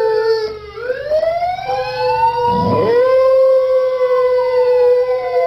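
Sirens wailing, several tones gliding up and down over one another, with a dog howling along in a long held note that breaks briefly about halfway through.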